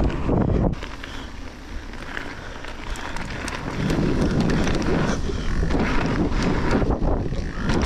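Mountain bike riding a dirt trail: wind buffeting the microphone over a rumble of tyres on dirt, with small clicks and rattles from the bike. It drops quieter for about three seconds near the start, then rises again.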